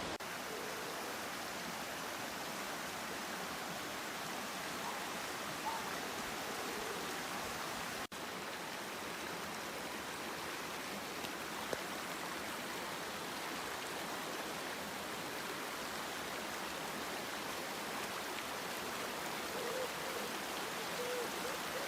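Pistyll Rhaeadr waterfall: a steady, unbroken rush of falling water, with a brief break about eight seconds in.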